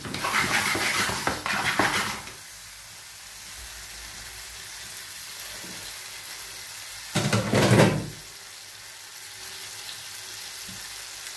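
Lamb jalfrezi sizzling steadily in a frying pan. A spatula stirs and scrapes through it for about two seconds at the start and again briefly about seven seconds in.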